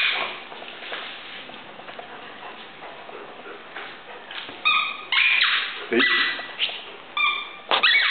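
Irish Wolfhound whining and yipping: high, thin whimpers and short falling yelps in the second half, after a stretch of quieter scuffling.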